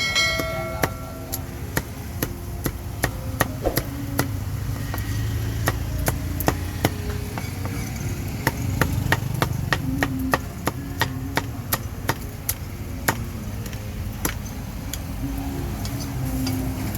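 Cleaver chopping pork: irregular sharp chops, about two or three a second, over a low steady rumble. A brief metallic ring sounds right at the start.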